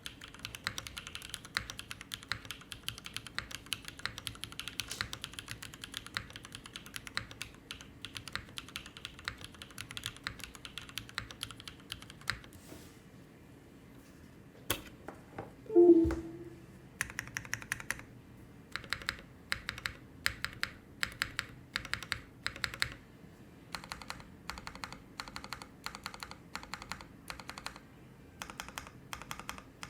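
Typing on a tenkeyless mechanical keyboard with a full polypropylene plate, linear Ca Phe Sua Da switches lubed with 205g0, and GMK keycaps. Fast typing for the first twelve seconds, then a pause broken by one loud thump with a brief ringing tone, followed by keys pressed evenly about twice a second and quicker typing near the end.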